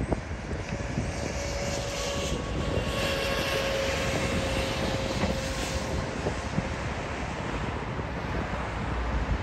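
Landing jet airliner's engines, a steady whine over a broad rush.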